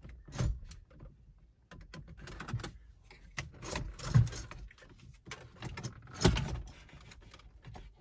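Plastic car dashboard trim and wiring being handled by hand: irregular clicks, rattles and rustling, with sharper knocks about half a second, four seconds and six seconds in, as trim is popped out.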